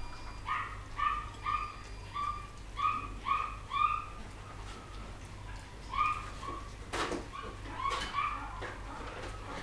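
Poodle puppies whimpering and yipping in a run of short, high-pitched cries, about three a second. The cries pause around four seconds in and start again, with a couple of sharp clicks among them.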